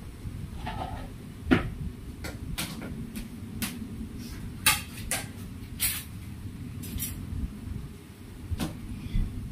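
Kitchenware being handled: a scattered series of short, sharp clinks and knocks of dishes and utensils, the loudest about one and a half seconds in.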